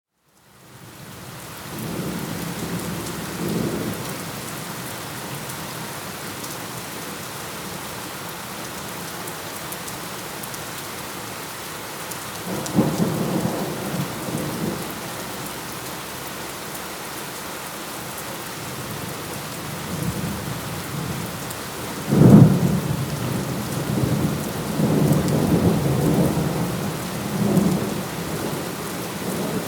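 Thunderstorm: steady rain falling, with thunder rumbling several times over it. The rain fades in at the start. The loudest thunderclap comes about two thirds of the way through and rolls on in long rumbles.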